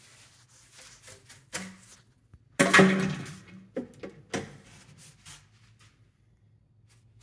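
Hollow knocks and scrapes of plastic drain pipe being handled and shifted by hand, the loudest knock about two and a half seconds in ringing briefly, followed by a few lighter knocks.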